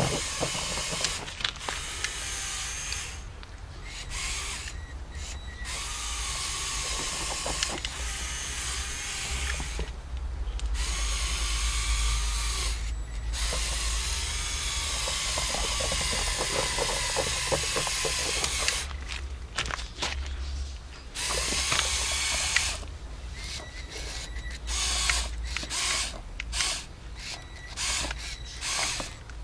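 Small electric motors and plastic gears of a Lego Technic crawler, a whine that wavers up and down in pitch as it drives, with a drill-like gear rattle. It stops and starts again and again, with short pauses more often towards the end.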